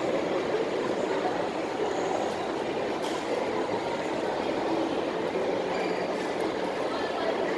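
Steady background din of a busy indoor food court, many distant voices and room noise blended into an even hum, with a few faint clicks of plastic forks on plates.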